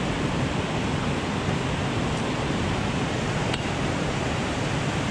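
Rushing whitewater of a fast creek pouring below a dam, a steady even noise, with two faint ticks about two and three and a half seconds in.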